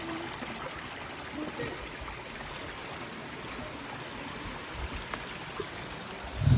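Stream water running steadily over rocks. Near the end there is a short, loud low rumble.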